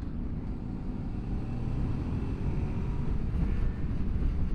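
Honda VFR800's V4 engine running as the motorcycle rides along, under low wind and road rush on the bike-mounted microphone. The engine note rises slightly as it picks up speed.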